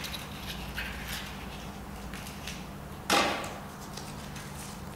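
A paper draw slip being handled and unrolled by hand: faint clicks and rustles over quiet room tone, with one louder rustle about three seconds in.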